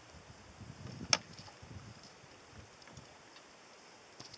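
Faint low knocks and handling rustles, with one sharp click about a second in.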